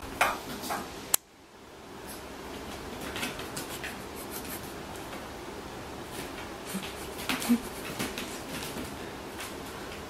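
Dogs' claws clicking and scuffling on a hard floor as they move about and play, in scattered light ticks over a steady hiss. A sharp click comes about a second in, and the background drops out briefly just after it.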